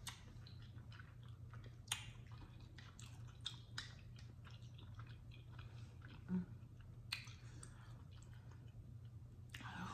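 Close-miked chewing of soft cooked chitterlings in hot sauce: quiet, wet mouth sounds with scattered sharp clicks, over a steady low hum.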